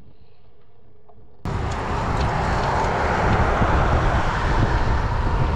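Faint music, then an abrupt cut about a second and a half in to loud, steady wind and road noise from riding a road bike along a road with traffic.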